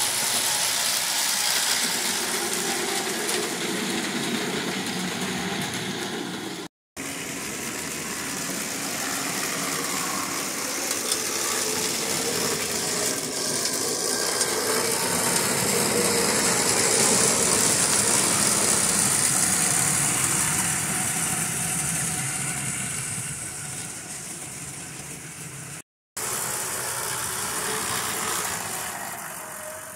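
O-scale model train running on outside-third-rail track: a steady whirring, rattling run of the electric locomotive's motor and the wheels of the freight cars on the rails. The sound cuts out briefly twice.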